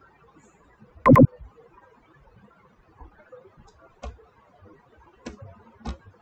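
A few scattered computer-keyboard keystrokes, sharp isolated clicks in the second half, while code is typed. About a second in there is one brief, loud pitched sound, much louder than the keys.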